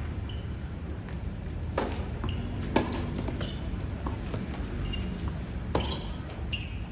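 Tennis ball struck by rackets during a doubles rally: a series of sharp pops a second or more apart, the loudest a little under three seconds in, with lighter ball bounces and taps between.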